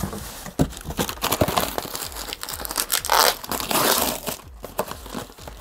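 Plastic packaging crinkling and cardboard rustling as packed chair parts are pulled out of a shipping carton, with irregular small clicks and knocks from the handling.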